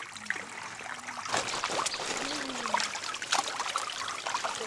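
Shallow water splashing and trickling as hands scoop fish in a pond, getting busier with quick splashes about a second in.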